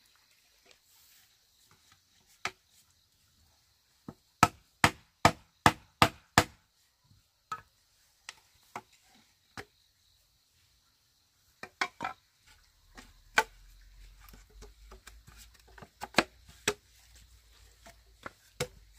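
Hard hollow knocks of bamboo on bamboo as rungs are fitted into holed bamboo chair legs: a quick run of six strikes about four seconds in, then scattered single knocks later.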